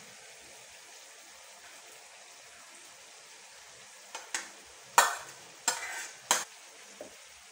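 Faint steady sizzle of buttered shrimp cooking in a skillet. About four seconds in come five or six sharp clacks of a bowl and utensils knocking against the pan as chopped scallions are tipped in, the loudest about five seconds in.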